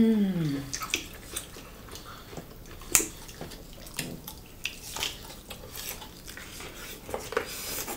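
Close-miked eating sounds: wet, irregular mouth clicks and lip smacks of two people chewing a cooked mushroom dish by hand. It opens with a short hummed "mm" that falls in pitch, and a sharp click about three seconds in is the loudest.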